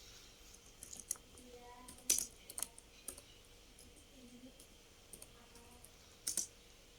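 Computer keyboard being typed on: scattered, irregular taps and clicks, a few at a time with gaps between them.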